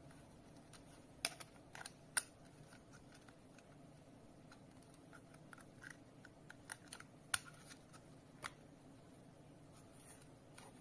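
Small plastic clicks and light handling noise from the case of a Wi-Fi water leak sensor being worked open and snapped shut, with several sharp clicks spread out and faint rustling between them.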